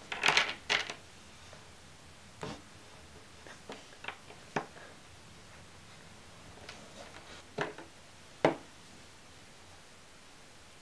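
Plastic LEGO pieces being handled and knocked together on a baseplate: a quick cluster of sharp clacks at the start, then single clicks every second or two.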